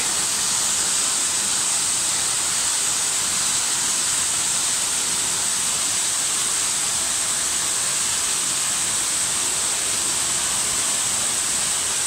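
Small waterfall cascading over stepped rock ledges: a steady, even rush of falling water.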